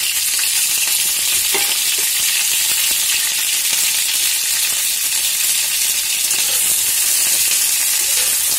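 Cauliflower florets frying in hot oil in a kadai: a loud, steady sizzle with a few faint pops.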